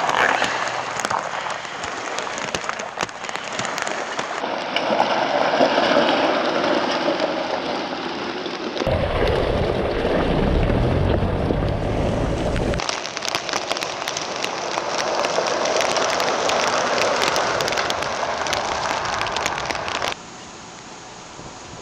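Tyres of a 2022 Ford Bronco Everglades crunching and crackling over loose gravel and stones as it drives slowly on a trail. For about four seconds in the middle a deep rumble takes over, and near the end the sound drops suddenly to a quieter steady hiss.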